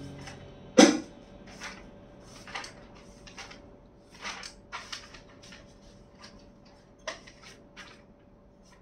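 Scattered light taps, clicks and rustles of sheet music being handled on a metal music stand, with one sharper knock about a second in.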